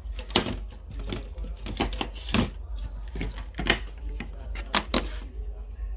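Irregular clicks and taps, as of parts and tools being handled on a TV under repair, over a steady low electrical hum.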